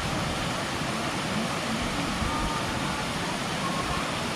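Steady, even rushing of a waterfall, the 38 m Suuçtu falls pouring down, with no let-up.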